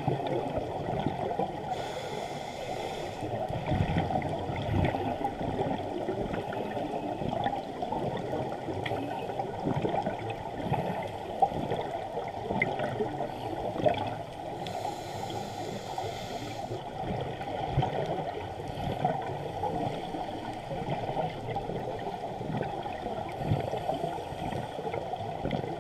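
Muffled underwater noise heard through a GoPro's waterproof housing: a steady low bubbling crackle, with two short hisses about two seconds in and about fifteen seconds in.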